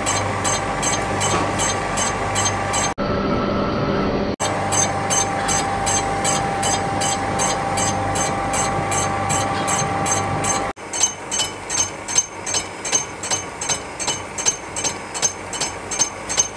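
Workshop machinery running: a regular beat of short knocks, about two a second, over a steady machine hum. The sound breaks off sharply a few times.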